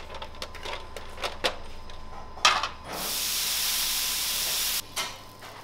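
Light clicks and clinks of metal trays, a sharp clatter about two and a half seconds in, then a steady hiss for about two seconds that cuts off abruptly: kadayıf batter streaming from a machine's row of nozzles onto a turning hot plate and sizzling.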